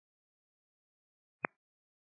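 Silence between air traffic control radio transmissions, broken once about one and a half seconds in by a single short click, a brief radio transmission click.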